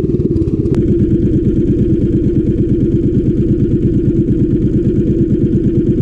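Small boat engine running steadily, with an even, fast pulsing beat and a single sharp click about three-quarters of a second in.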